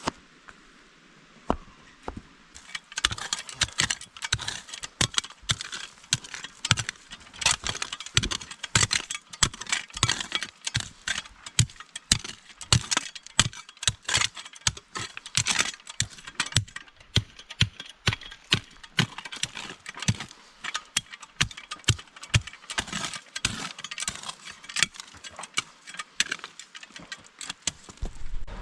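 A dense, irregular clatter of sharp clicks and knocks with a rattling undertone, starting a couple of seconds in and running on with no steady rhythm.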